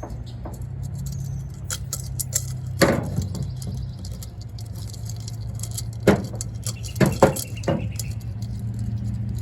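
A small metal chain clinks and knocks in a series of light, irregular clicks as it is handled and fitted to a coconut-shell birdhouse. A steady low hum runs underneath.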